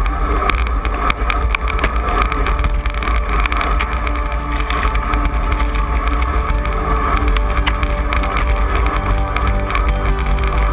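Wind buffeting a bicycle-mounted action camera's microphone while riding a road bike at speed, mixed with a steady tyre and road hum and small rattles from the bike.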